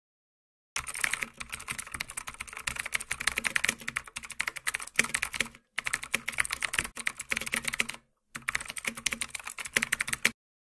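Rapid computer-keyboard typing, used as a sound effect for text being typed onto the screen. It comes in three quick stretches of clicking with short pauses between, then stops just before the end.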